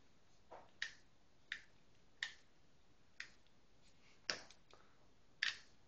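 Sharp, light clicks, about seven of them at irregular intervals, from a small plastic wind-up toy being handled and wound.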